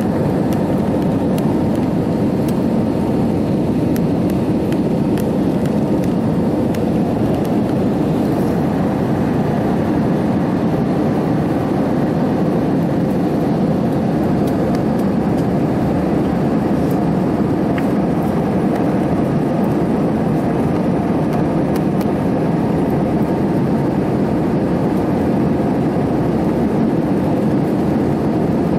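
Steady, loud cabin noise of an Airbus A320 jet airliner in flight: the rush of the engines and airflow heard from a window seat over the wing.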